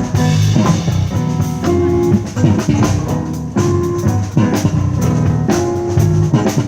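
Live band playing an instrumental passage between sung lines of the song, with held chords and a steady drum beat.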